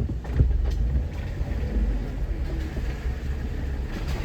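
Jeep engine running low and steady under load, heard from inside the cab, as the Jeep drops into a deep trail hole. There is a sharp knock about half a second in, and from about a second and a half a rushing noise grows.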